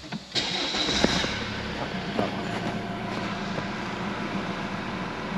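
Fiat Toro's 2.0 MultiJet four-cylinder turbodiesel engine idling with a diesel clatter. The sound comes up sharply just after the start, then runs steadily. The engine is running nicely after suspension and cooling-fan repairs.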